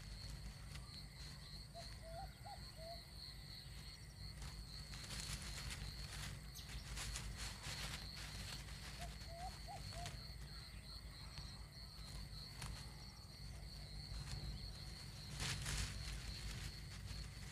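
Faint outdoor nature ambience: a steady high insect drone over a low rumble, with small faint chirps twice and a few soft rustles.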